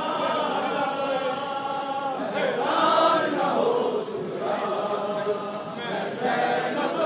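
A large crowd of men chanting together in unison, a Muharram mourning chant, swelling loudest about three seconds in.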